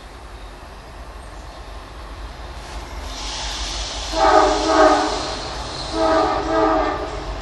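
Diesel freight locomotive's air horn sounding two pairs of blasts, about four seconds in and again about six seconds in, over the rising rush of the approaching train.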